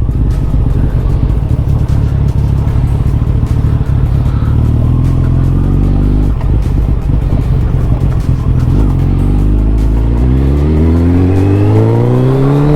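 Suzuki Hayabusa's inline-four engine running under way at a steady pitch, then revving up, its note climbing steadily over the last few seconds as the bike accelerates.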